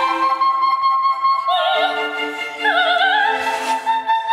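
Recorded opera soprano singing a high held note with orchestral accompaniment; from about a second and a half in, the voice wavers in wide vibrato over sustained lower notes.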